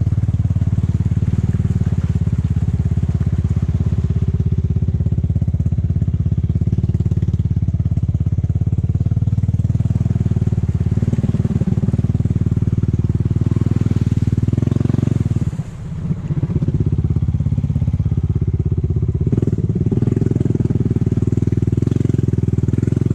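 Honda ATV's single-cylinder engine running steadily under throttle while driving through mud and water. The engine sound drops briefly about two-thirds of the way through, then picks up again.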